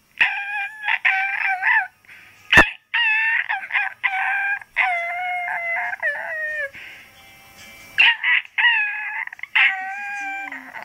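Shih Tzu puppy howling: a string of long, wavering high-pitched calls, one of them sliding down in pitch midway. A single sharp knock sounds about two and a half seconds in.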